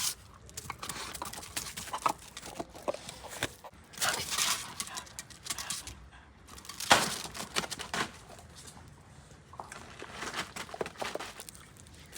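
A pet dog playing and moving about, with bursts of rustling and a few sharp knocks, the loudest about seven seconds in.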